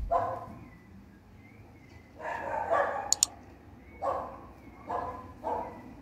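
A dog barking several times off and on, short separate barks with a longer one two to three seconds in. Two sharp clicks sound about three seconds in.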